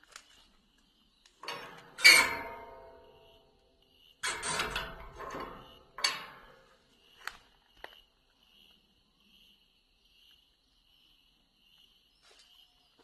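Metal latch of an old gate being worked. A short scrape leads into a loud clank that rings out about two seconds in. A rattling clatter follows, then another clank, and two light clicks near the end of the activity.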